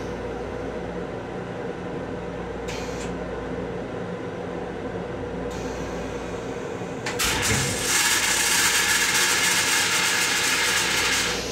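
M7 railcar toilet flushing. About seven seconds in, a loud hiss of rinse water spraying into the stainless-steel bowl starts suddenly and lasts about four seconds. Under it runs the steady, slightly tonal hum of the railcar's equipment.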